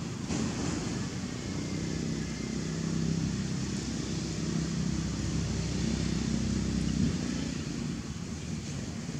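A motor vehicle's engine running steadily, a low hum over outdoor background noise.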